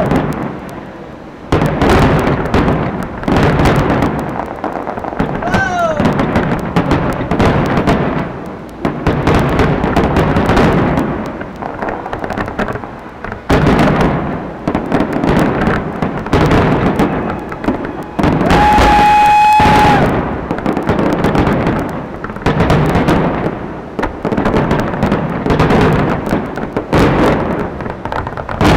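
Aerial fireworks bursting in quick succession, shell after shell with hardly a pause. A short falling whistle sounds about five seconds in, and a steady whistle lasting about a second and a half comes about two-thirds of the way through.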